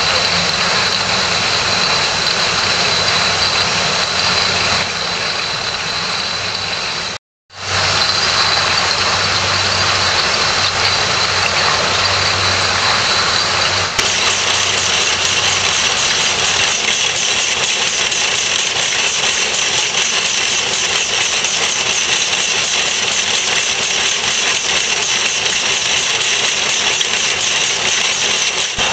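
Italian-made bottling-line machinery running with a steady mechanical drone and a high whine. The sound cuts out for a moment about seven seconds in, and its character changes about halfway through.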